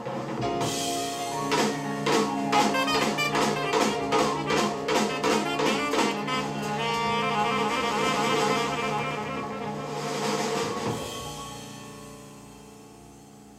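Jazz record played on a turntable through a valve-amplified hi-fi loudspeaker system: alto saxophone and ensemble with a drum kit hitting a run of sharp accented beats in the first half, then a held closing chord that dies away over the last few seconds.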